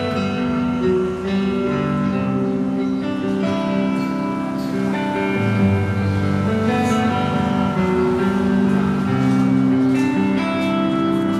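Recorded music with guitar and a strong bass line, played through a pair of JBL Northridge Series N36II loudspeakers in a listening test.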